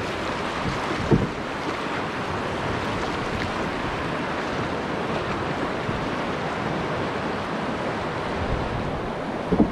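Rushing river water: a riffle of fast whitewater washing steadily around a drifting boat, with a short thump about a second in and another near the end.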